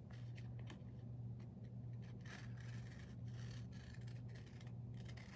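Faint scratchy rustles and scrapes of paper being handled, cut or smoothed down, over a steady low hum.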